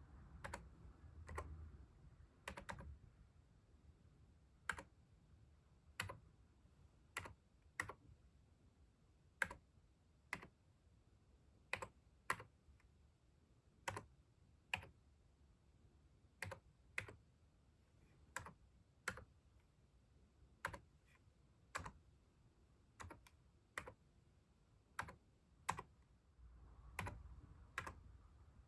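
Keys on a computer keyboard being pressed one at a time, slowly and unevenly, about one sharp click a second.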